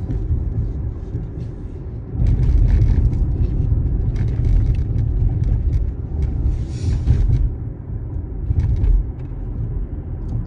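Low road rumble inside a moving car's cabin, growing louder about two seconds in, with short spells of hiss now and then.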